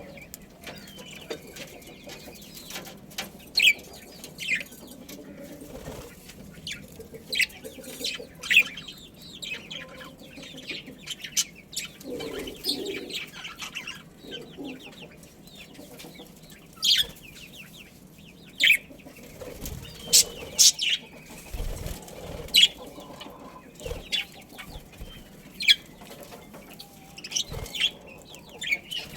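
Budgerigars chirping: many short, sharp, high calls at irregular intervals, a few much louder than the rest.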